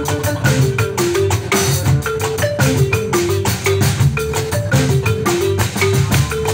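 Live band playing an instrumental passage: a wooden marimba with gourd resonators plays a short repeating melodic figure of struck notes over electric bass and drum kit.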